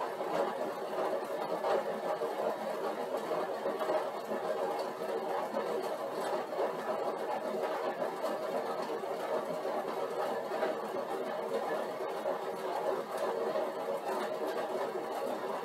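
Stationary cycle ergometer running steadily as it is pedalled against a 150-watt load.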